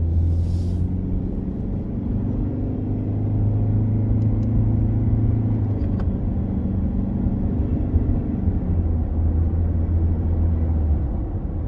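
A car's engine and road noise heard from inside the cabin while driving: a steady low hum whose pitch rises a little over the first few seconds and shifts about six seconds in, with a single click at that point.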